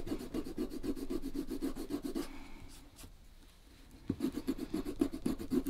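Cobbler's file rasping across the inner edge of a leather shoe rand in quick short strokes, roughing the leather so the glue will grip. The filing stops for a moment near the middle, then starts again.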